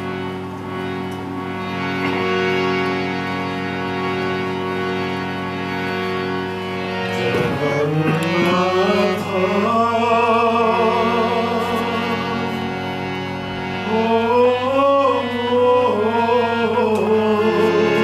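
Harmonium playing a steady held chord, with a man's voice coming in about seven seconds in to sing a devotional bhajan over it in wavering held notes, then a second sung line near the end.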